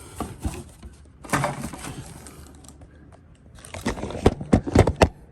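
Handling noises from a fire alarm strobe and a 9-volt battery: a scrape about a second in, then a quick run of sharp clicks and knocks near the end. No alarm tone sounds.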